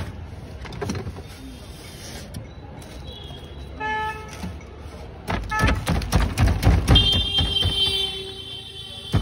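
Metal ice pick stabbing and chipping a block of ice in an ice box: a fast run of sharp knocks through the second half. Street traffic underneath, with a short vehicle horn toot about four seconds in.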